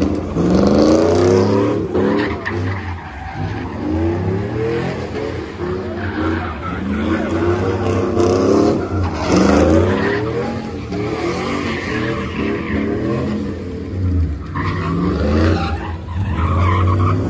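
Car engines revving hard again and again, each rev climbing in pitch, with tires skidding, as in burnouts at a car meet.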